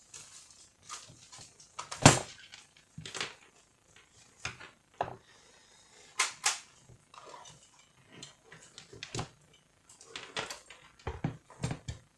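Irregular clicks and knocks of plastic and metal parts being handled and set down while a Canon iR2016/iR2018 copier fuser unit is worked on by hand, the loudest knock about two seconds in.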